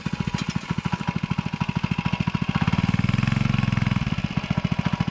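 Minibike's small engine running at low revs with a rapid, even putt-putt beat as it is ridden over grass, getting louder about halfway through and easing off slightly near the end.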